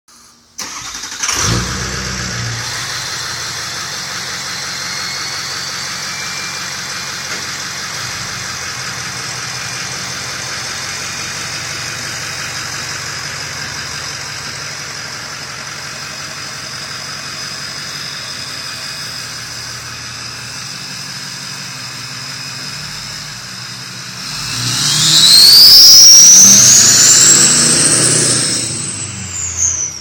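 Ford 6.0 Power Stroke V8 turbo diesel with an '03 turbocharger and BatMoWheel compressor wheel, starting about a second in and then idling with a steady high turbo whistle over the exhaust rumble. Near the end the truck accelerates away: the turbo whistle climbs sharply in pitch and gets much louder, then falls off.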